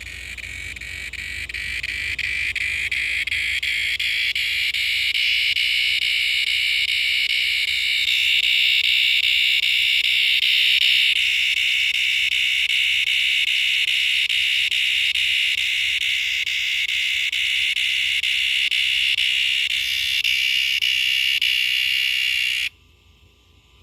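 Cicada calling: a loud, steady, high buzz that swells over the first few seconds, holds, then stops abruptly near the end.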